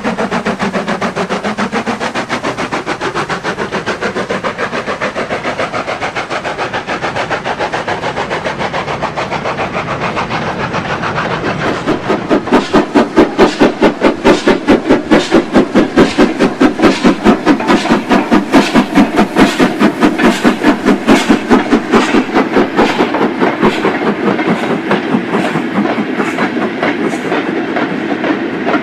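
A model train running on the layout's track, giving a rhythmic clickety-clack with a whine that shifts in pitch. From about twelve seconds in the beat grows louder and more marked, at about two beats a second.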